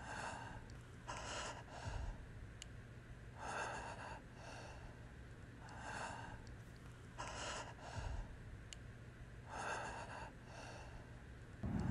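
A person breathing heavily and slowly: about six breaths, each a louder draw followed by a fainter one, spaced roughly two seconds apart.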